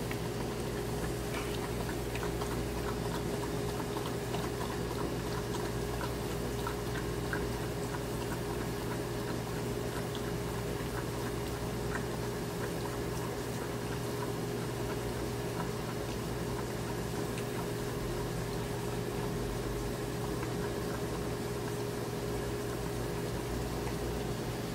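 A beagle lapping frothy milk from a plastic bowl, with steady wet lapping and slurping throughout. A steady low hum runs underneath.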